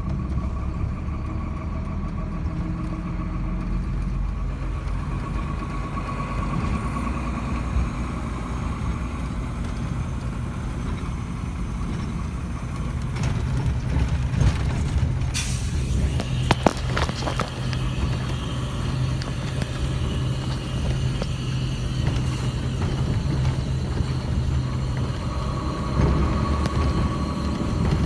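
A vehicle engine running steadily, with a few sharp clicks about halfway through.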